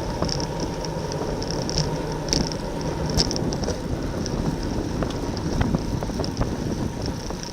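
Wind rushing over the microphone with road noise from a road bicycle ridden at racing speed, with scattered light clicks throughout.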